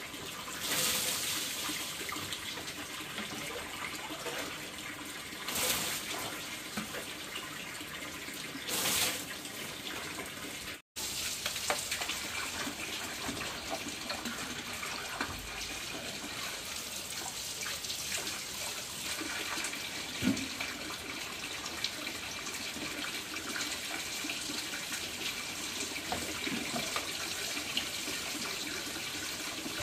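Water running steadily, with a few louder splashes in the first ten seconds. The sound breaks off for an instant about eleven seconds in, then the running water carries on.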